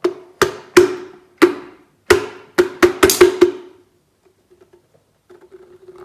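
Upturned electric kettle being banged over a stainless steel sink to shake out rice stuck inside: about ten sharp knocks in quick succession, each with a short ring, stopping after three and a half seconds.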